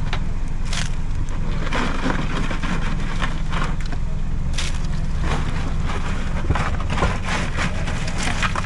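A steady low motor drone with crackling, rustling and clattering over it: a plastic bag of live blue crabs being handled, and the crabs scrabbling as they are moved into a plastic tub.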